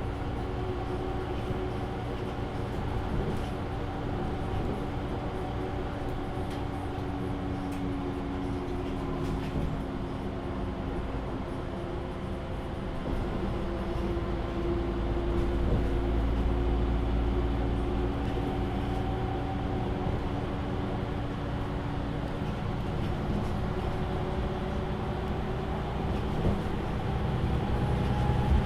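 MAN Lion's City A37 NL293 city bus running, heard from inside the passenger cabin: a steady engine and drivetrain hum over a low rumble, getting louder about halfway through.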